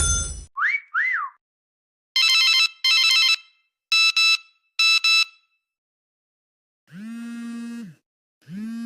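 A run of separate electronic sound effects. A short loud burst comes first, then two quick whistles that rise and fall. Next come paired ringing tones like a telephone ring, and near the end two low buzzer tones, each about a second long.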